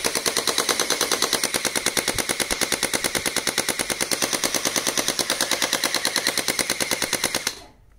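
Electric gel-bead toy blaster running on full auto: a rapid, even rattle of about ten clicks a second from its firing mechanism, which stops suddenly near the end.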